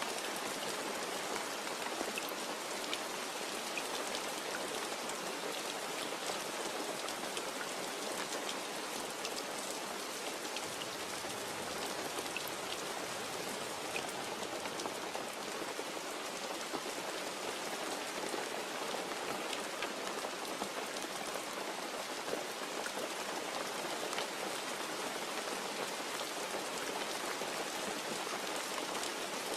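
Steady rain falling, a continuous hiss with many fine drop ticks and no thunder.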